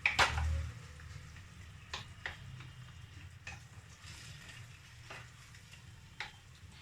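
Boiled taro greens with chickpeas frying gently in oil in a pan with a faint, steady sizzle, stirred with a spatula that knocks against the pan sharply just after the start and lightly several more times.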